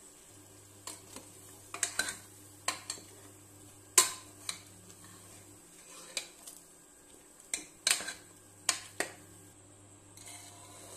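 A spoon stirring chopped vegetables in a metal pot, clinking and knocking against the pot about a dozen times at an irregular pace.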